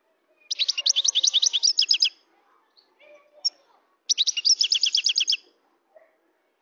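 European goldfinch singing: two fast trills of rapid, evenly repeated high notes, about ten a second, the second starting about two seconds after the first ends.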